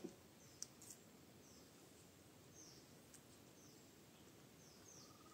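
Near silence with a distant bird calling in the background: faint short high chirps, each falling in pitch, repeat every second or so. There are a couple of soft clicks in the first second.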